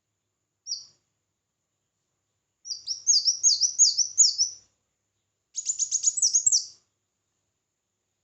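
Sunbird (kolibri wulung) singing: a short high note about a second in, then two fast, very high-pitched phrases of rapid notes running into quick downward sweeps, with pauses between them.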